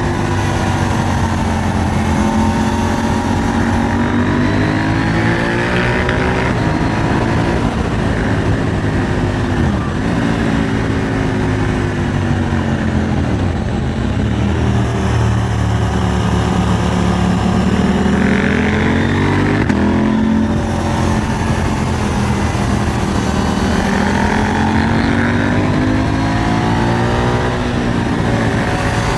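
KTM 890 Duke R's parallel-twin engine under way. Its pitch rises and falls again and again as the throttle opens and closes, with a sharp drop about a third of the way in and a long climb past the middle.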